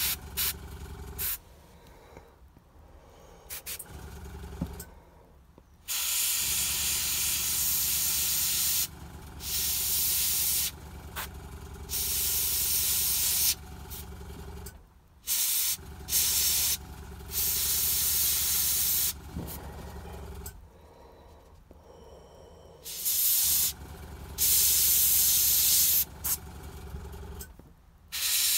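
Gravity-feed airbrush spraying paint: a few short spurts, then several bursts of steady hiss lasting a few seconds each as the trigger is held and released. A low hum from the air compressor's motor runs under the spraying.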